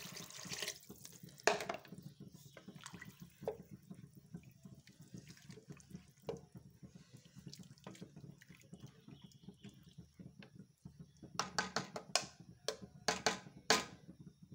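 Water pouring into a steel pot of lentils, ending less than a second in. A wooden spoon then stirs the lentils in the water, giving scattered knocks against the pot and a quick run of clicks and knocks near the end.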